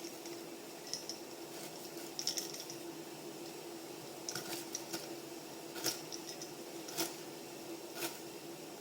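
Lemongrass stalks being cut into pieces: a series of separate sharp clicks, about seven spread over several seconds, over a steady low hum.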